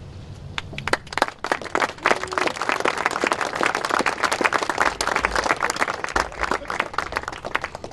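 Crowd applauding with many people clapping, building from about half a second in.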